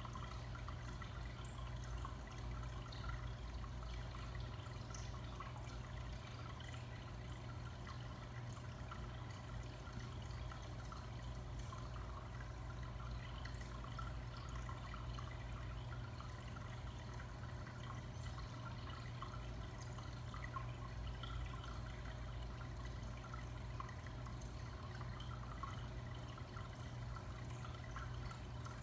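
Aquarium filter running: a steady low hum with light water trickling and dripping.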